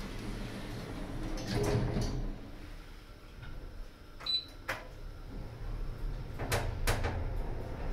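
Lift car doors sliding shut, with a dull thud about two seconds in as they close. This is followed by a few sharp clicks, then two louder clunks near the end from the lift's machinery as it gets ready to move off, all over a steady low hum.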